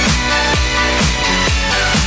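Electronic dance music with a steady four-on-the-floor kick drum beat, about two beats a second.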